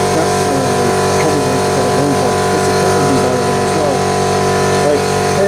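Small electric air compressor running with a steady hum.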